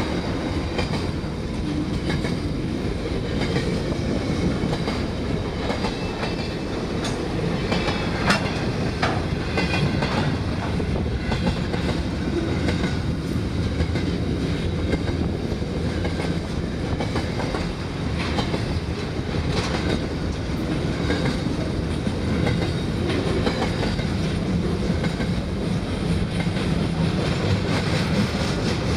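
Pacific National intermodal freight train's container wagons rolling past at close range: a steady rumble of wheels on rail, with a few sharp clacks.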